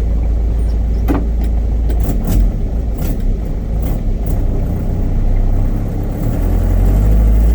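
Hyundai truck engine running while the truck is driven: a deep, steady rumble with several short knocks and rattles in the middle, growing a little louder near the end.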